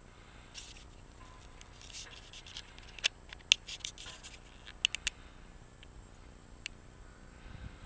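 Handling noise on a camera's microphone: scattered scratches and sharp clicks, thickest about three to five seconds in, over a faint steady high tone.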